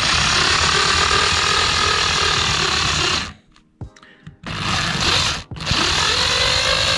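Cordless drill run in reverse, its screw-extractor bit grinding into a stripped, over-tightened screw head to bore it out. The drill runs in three bursts, stopping briefly about three and a half seconds in and again around five and a half seconds, with its whine rising to a steady pitch at the start of the last burst.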